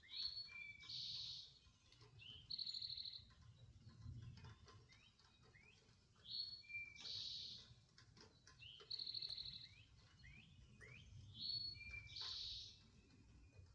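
A songbird singing the same short high phrase over and over, about every two to three seconds: a brief whistled note followed by a buzzy trill.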